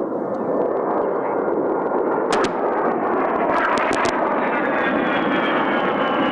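A-10 jet aircraft roaring, with a high whine that falls slowly in pitch over the last two seconds. Sharp cracks come twice about two and a half seconds in and four times in quick succession about a second later.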